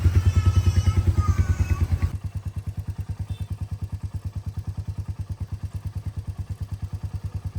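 Motorcycle engine running with a quick, even low pulsing. It is louder for the first two seconds, then carries on more quietly and steadily.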